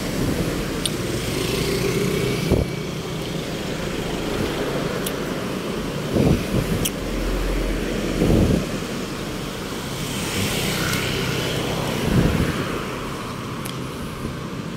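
Road traffic noise: a steady wash of passing vehicles, broken by a few dull low thumps.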